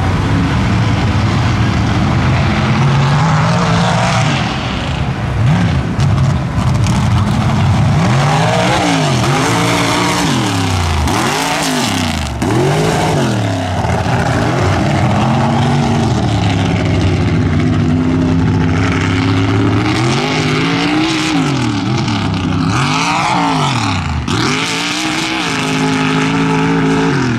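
One-ton class mud truck engine running hard. After a steady drone it revs up and down over and over in quick swoops of pitch.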